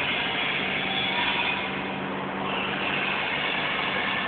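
Forklift running with its hydraulics turning a 360° paper roll clamp attachment: a steady low hum with a constant high whine, easing slightly about halfway through.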